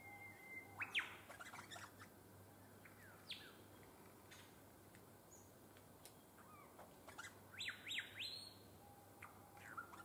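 Birds calling in bushland: quick high chirps that sweep downward in pitch, a burst of them about a second in and another cluster near the end, with scattered single calls between.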